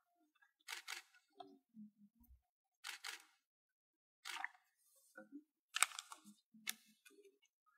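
Camera shutters firing in about five short bursts of rapid clicks, a second or so apart.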